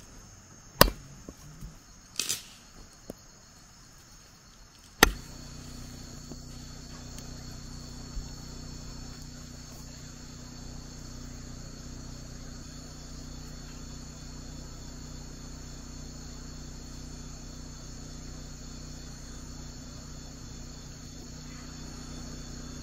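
Machete chopping ayahuasca vine on a wooden log: a few sharp chops in the first five seconds, one with a brief ringing tail. After that, a steady chorus of crickets and insects over a low hum.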